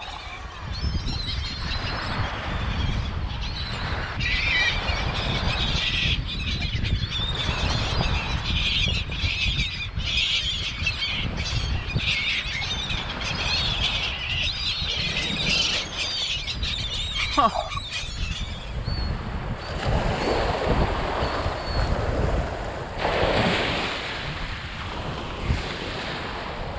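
A feeding flock of gulls calling over and over, many birds at once, with wind rumbling on the microphone. About eighteen seconds in the calls die away and small waves wash onto the sand.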